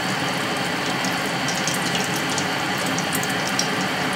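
Hot oil sizzling and crackling steadily around breadcrumbed, egg-dipped chicken sticks deep-frying in a metal pan.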